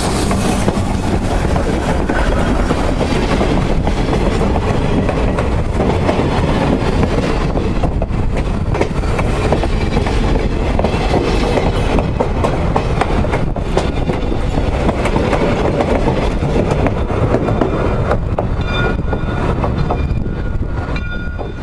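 Steam locomotive and the cars behind it rolling past close to the rails: a steady heavy rumble with wheels clicking over rail joints, and a few thin high tones near the end.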